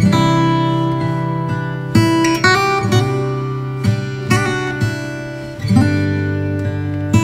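Background music: an acoustic guitar strumming chords that ring and change every second or two.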